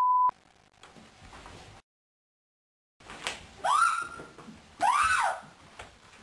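A short steady beep of a test tone over colour bars, then a gap of dead silence. Then a woman gives two high-pitched squeals, each rising and falling in pitch, about a second apart.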